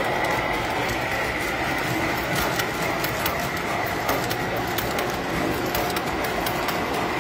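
Tinplate electric toy train running on three-rail tinplate track: a steady rumble of wheels and motor, with rapid irregular clicking from about two and a half seconds in as the cars roll over the track crossing and rail joints.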